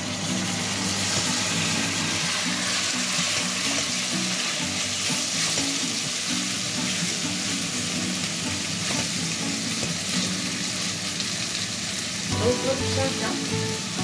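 Marinated diced chicken breast sizzling steadily in olive oil preheated hot in a stainless steel pot, with a spoon stirring the pieces.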